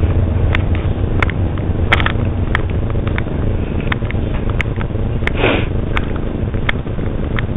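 Footsteps on a dirt forest trail at a steady walking pace, about three steps every two seconds, over a steady low rumble on the handheld camera's microphone. A short hissing noise, like a sniff, about five seconds in.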